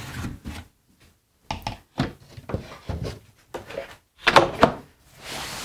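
A wooden crosscut sled base with waxed purpleheart runners handled and set down onto a table saw top: a series of wooden knocks and thuds, the two loudest a little past four seconds in. Near the end comes a steady rubbing hiss as the sled slides along the miter slots.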